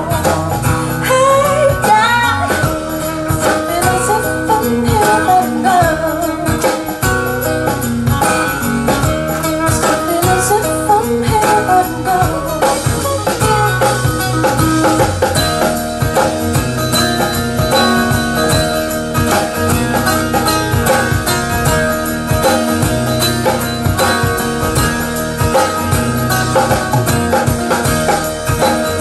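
Recorded music with a female singer and guitar, played back through a high-end hi-fi system's floor-standing loudspeakers. The singing gives way to instrumental playing about halfway through.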